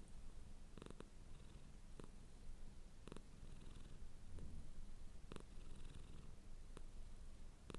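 Domestic cat purring steadily, a low continuous rumble, with short soft clicks roughly once a second.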